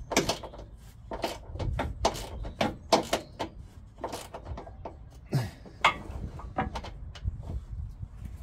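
Irregular metallic clicks and knocks of a spanner working a nut on a van's front lower control arm mounting as it is tightened, about one or two a second, over a steady low rumble.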